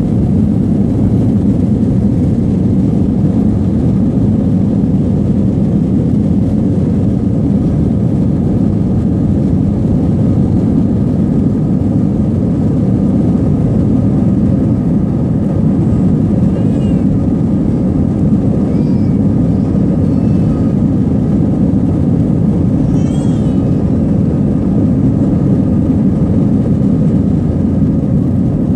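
Airbus A320's jet engines at takeoff thrust heard from inside the cabin during the takeoff roll: a loud, steady, deep rumble. A few faint high-pitched chirps come through in the second half.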